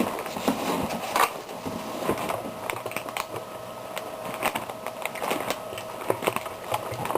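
Scattered light clicks and taps at an irregular pace, with no clear speech.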